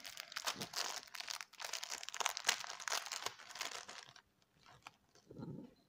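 Small clear plastic packet of googly eyes crinkling and crackling as it is handled, a quick, dense run of crackles for about four seconds, then only faint rustles.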